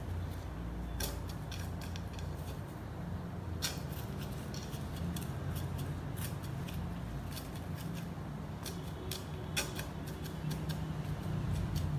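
A thin wooden stick jabbed and worked into gritty potting soil in a terracotta pot, making irregular scratches and clicks, two of them sharper, about a third of the way in and near the end, over a steady low hum.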